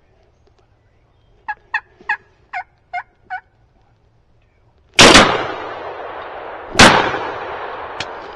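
A turkey yelps six times in a quick even series, then two 12-gauge shotgun blasts about two seconds apart, each echoing through the woods as it dies away. A sharp click follows shortly before the end.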